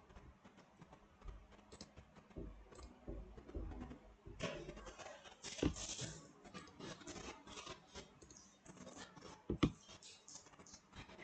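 Faint, irregular clicking and scratching of a computer mouse and keyboard being worked at a desk. The clicks come thicker from about halfway through, with one sharper knock near the end.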